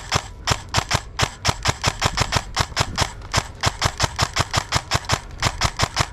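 Airsoft gun firing a long string of rapid shots, about six or seven sharp cracks a second, with a couple of brief pauses.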